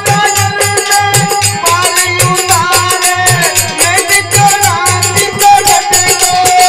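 Folk music of a Rajasthani bhajan: a dholak beats a steady, quick rhythm under a held melody line, with no words sung.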